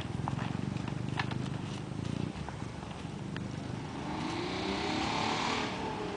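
A motor vehicle's engine running, then a vehicle passing about four seconds in: it gets louder with its engine pitch rising and then falling away. A few faint sharp clicks are heard in the first half.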